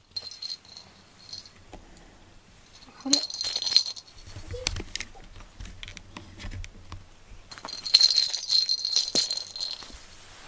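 A small jingle bell jingling in two spells, about three seconds in and again around eight seconds, as a cat bats and rolls with a plush toy. Soft knocks and rustling come in between.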